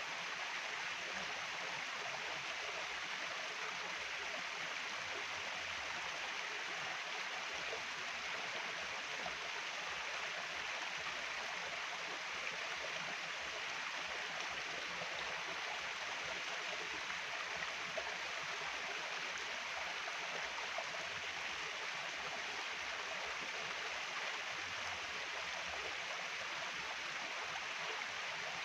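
Stream water flowing and rushing steadily, an even hiss with no breaks.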